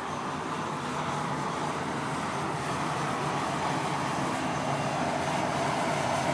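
Steady jet roar from a C-17 Globemaster III on the ramp, growing slightly louder, then cutting off suddenly at the end.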